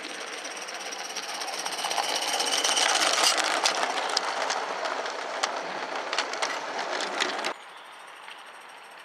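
Accucraft Lynton and Barnstaple 'Lew' live-steam garden-railway locomotive and its train of log wagons running past close by. It grows louder as it approaches, and the wheels click sharply over the rail joints as the wagons go by. About three quarters of the way through the sound cuts off abruptly, leaving a fainter, steady sound of the engine running further off.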